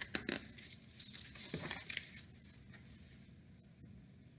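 Paper page of a hardcover picture book being turned: a few crisp rustles and crinkles in the first two seconds, then fainter handling of the book.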